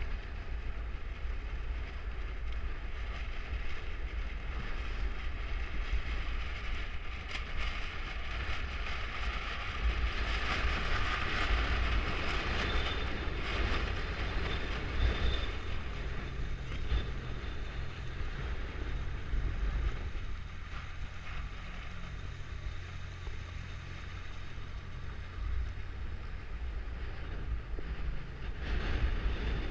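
Strong wind buffeting the microphone over a steady rush of choppy water and spray, the hiss swelling for a few seconds around the middle.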